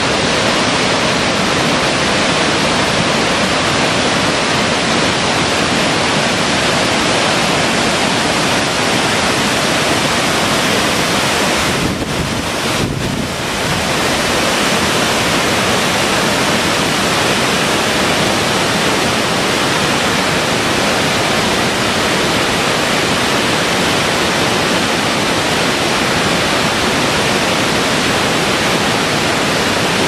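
Waterfall and river cascade: the steady, loud rush of falling and tumbling water. The sound briefly drops away about twelve seconds in.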